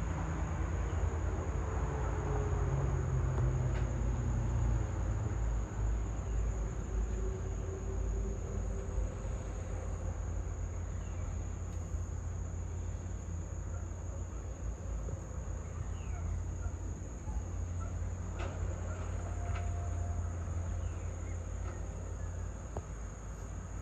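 Outdoor dusk ambience: insects trilling in a steady high-pitched drone over a constant low rumble, with a few faint short chirps here and there.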